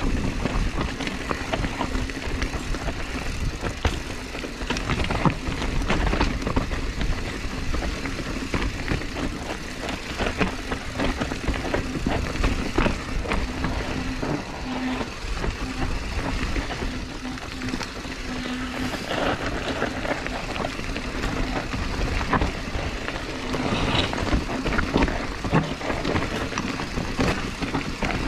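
Mountain bike riding down a rough dirt trail: constant rattling and knocks from the bike over the ground, with a low rumble and a steady buzz that comes and goes.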